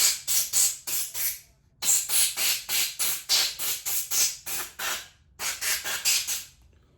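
Compressed-air blow gun blowing out an outboard carburetor body in rapid short bursts of hiss, about four a second, in three runs with brief pauses about one and a half and five seconds in.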